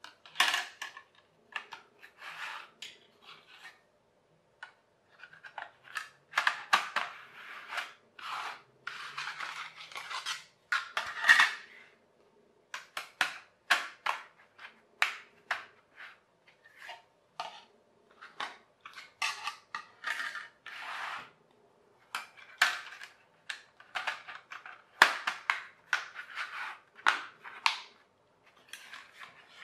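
Jigsaw-style toy track tiles being slotted together and slid across a wooden floor: irregular clicks, clatters and short scrapes with brief pauses between them.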